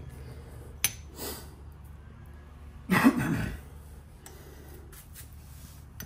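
A tire plug insertion tool being forced into a tire's tread by hand: a sharp click a little under a second in, then a short loud burst of breath from the effort about three seconds in.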